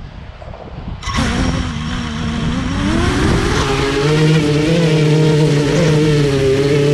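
Drone motors starting up about a second in, their whine rising in pitch as they spool up, then holding steady as the drone lifts off.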